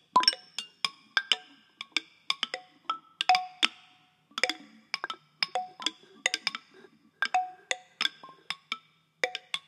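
Handheld found-object percussion instruments (lydes) struck in irregular, overlapping clusters of sharp taps. Several strikes come each second, and each rings briefly at its own pitch. Independent multitracked takes are layered, so the hits fall without a shared beat.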